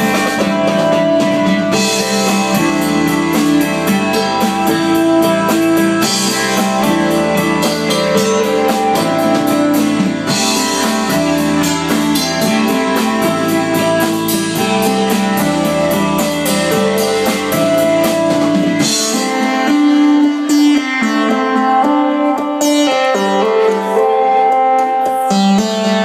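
Live rock band playing loud, with drum kit and guitar over a pulsing bass part. About three-quarters of the way through, the low bass drops out and the higher parts carry on.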